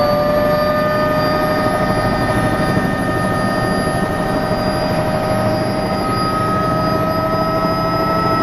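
Helicopter in flight: a steady rush of engine and rotor noise with a high whine on top, its pitch creeping slowly upward.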